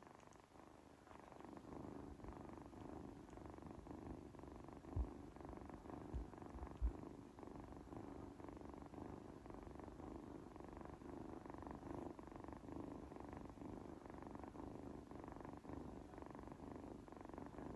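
A domestic cat purring steadily, with a few soft low thumps a few seconds in.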